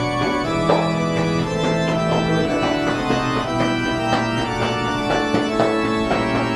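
Organ music playing slow, held notes and chords.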